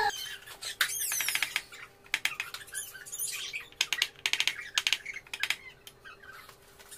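Runs of quick clicking from a hand tool turning bolts on the motorcycle's rear subframe, with a few short high chirps mixed in.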